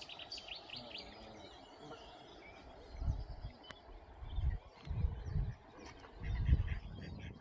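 Outdoor lakeside ambience with small birds chirping in quick, high notes in the first second or so. From about three seconds in, irregular low rumbles buffet the microphone.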